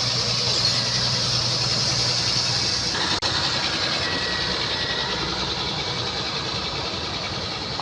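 Engine of heavy road-construction machinery running steadily, with a sudden brief dropout about three seconds in, after which the engine noise carries on.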